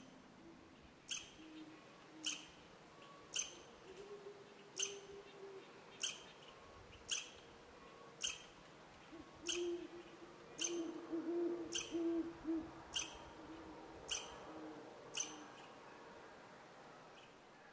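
An owl hooting low and soft, the hoots strongest a little past the middle. Over it, a sharp high tick repeats about once a second and is the loudest sound.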